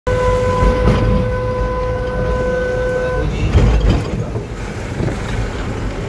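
A vehicle horn sounds one steady, held note for about three seconds and then stops. Under it, the low running rumble of a Tata bus or truck's engine is heard from inside the cab as it drives along.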